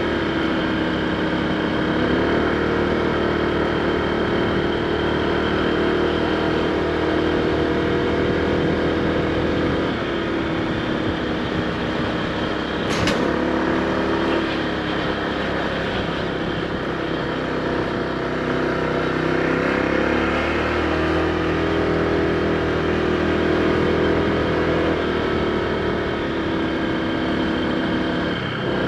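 Honda PCX160 scooter's single-cylinder engine running while riding, its pitch shifting up and down several times with the throttle, under steady wind rush. A sharp click about 13 seconds in.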